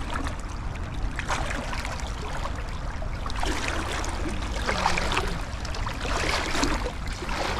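Fast-flowing river water rushing and splashing, surging louder a few times.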